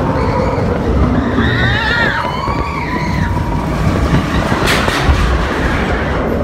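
A theme-park ride vehicle rumbling loudly through a dark section. Riders' voices cry out briefly early on, and there is a sharp hit or click a little before five seconds in.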